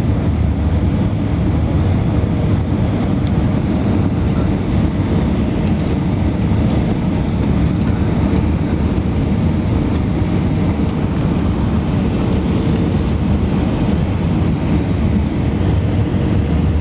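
Steady low roar inside an airliner's cabin on final approach: engine and airflow noise, with a faint steady hum running through it.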